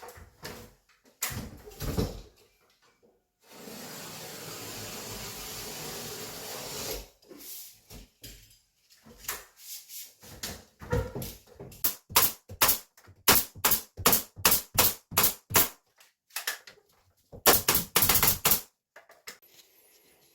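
Gypsum board being fastened to the timber framing: a steady noisy run of a few seconds, then quick series of sharp strikes, several a second, with a dense cluster near the end.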